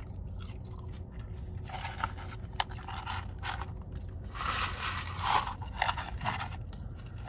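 Paper fry carton rustling and scraping in bursts as it is tipped up to the mouth. The rustling comes about two seconds in and again, louder, from about halfway. Chewing and crunching on fries can be heard between the bursts.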